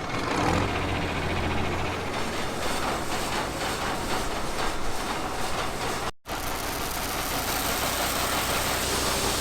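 Farm machinery running steadily, a low engine hum with rattling. It breaks off sharply about six seconds in and is followed by a similar steady, hissier running noise.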